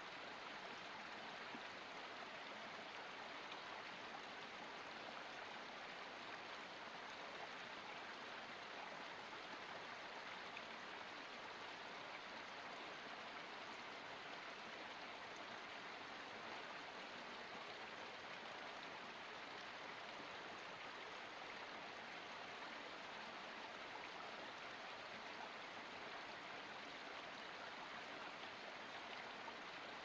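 Water of a small forest spring trickling and splashing down over rocks, a steady, even sound.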